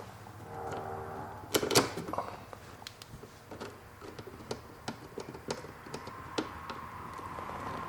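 Irregular small clicks and taps of hand work on car interior parts, with a louder clatter about a second and a half in.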